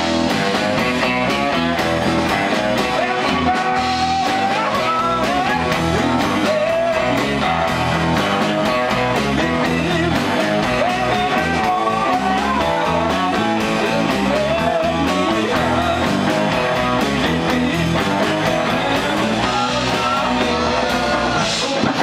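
A live rock band playing with electric guitars, bass guitar and drums, cymbals ticking steadily over a lead melody that bends and slides.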